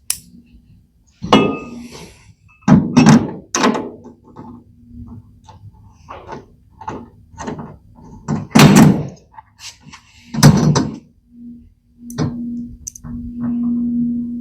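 A series of hollow metal clunks and knocks from a Husky steel rolling tool cabinet being handled while a side handle is bolted on. There are about a dozen irregular impacts, some loud, over a faint steady hum.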